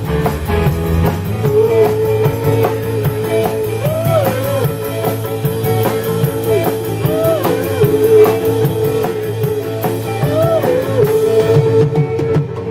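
Live rock band playing an instrumental break: a lead guitar holds one note, bending it up a few times, over drums and bass, with the cymbal beat stopping near the end.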